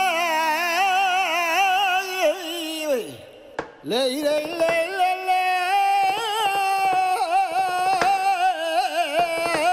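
Music with a single voice singing long, heavily ornamented melismatic lines, the pitch wavering in quick runs. About three seconds in the voice slides steeply down and nearly fades out, then swoops back up and carries on.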